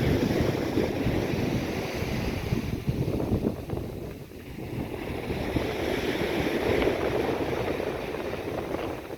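Sea waves washing in, with wind buffeting the microphone; the rush eases about four seconds in and swells again.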